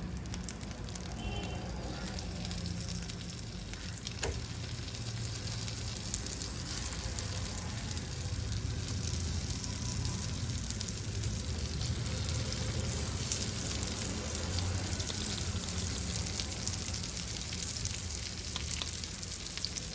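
Flattened mango-and-maida dough rounds frying in melted butter in a pan: a steady sizzle with a few small pops.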